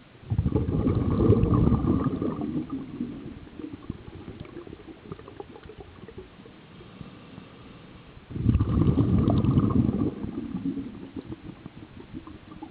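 Scuba diver's regulator exhaling underwater: two bursts of bubbling exhaust bubbles about eight seconds apart, each loud for about two seconds and then tailing off.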